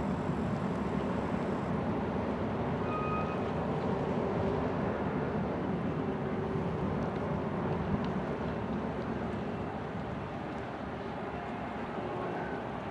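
Steady low rumble of ship and harbour boat engines, easing slightly about ten seconds in, with a couple of brief faint high tones.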